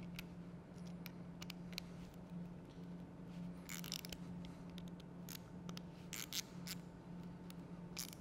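Faint, irregular small clicks and scrapes of an Allen key turning and seating the cap screws on a pneumatic solenoid valve as they are tightened, over a steady low hum.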